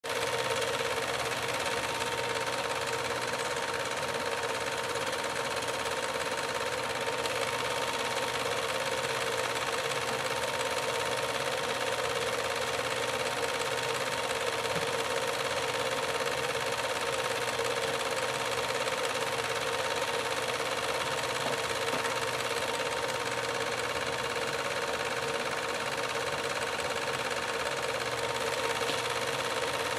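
Film projector running: a steady mechanical whirring with a thin steady tone through it, and no voices.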